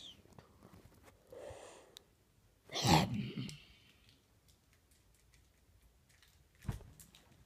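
A person sneezing: a short breath in, then one loud sneeze about three seconds in.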